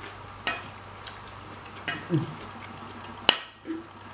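Metal forks clinking and scraping against ceramic plates: three sharp clinks about a second and a half apart, the last one the loudest.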